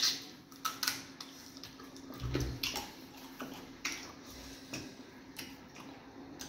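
Wet mukbang eating sounds: lip smacks, chewing and fingers squishing soft fufu in egusi soup, heard as scattered sharp wet clicks and smacks, the loudest right at the start, with a dull low thump a little past two seconds in.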